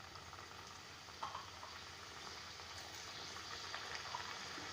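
Samosas deep-frying in hot oil in a pan: a steady faint sizzle that grows gradually louder, with a short louder crackle about a second in.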